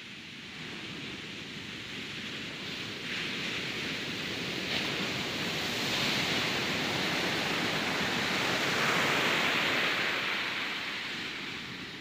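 Ocean surf breaking on a sandy beach: a steady rushing hiss that grows louder through the first half, is loudest in the second half, and eases slightly near the end.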